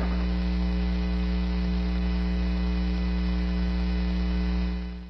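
Steady low electrical buzzing hum, level throughout, that fades out just before the end.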